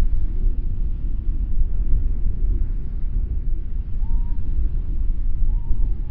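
Breeze buffeting the microphone: a steady, fluttering low rumble. A couple of faint short calls sound briefly over it, about two-thirds of the way in and near the end.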